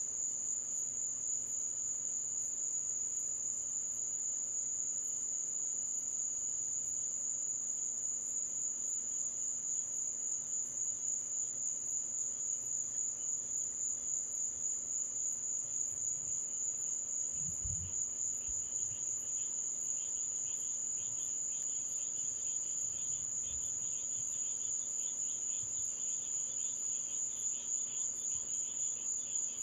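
Chorus of night insects: a steady, high-pitched, pulsing trill, joined about two-thirds of the way through by a second, lower trill.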